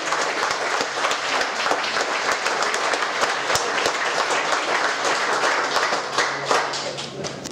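Audience applauding: many hands clapping at a steady level, then fading out near the end.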